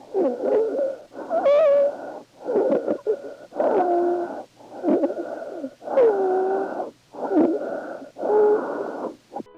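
Stridor recorded at auscultation: harsh breath sounds with wavering musical tones, about one breath sound a second. It is the sign of upper-airway obstruction or bilateral vocal-cord paralysis.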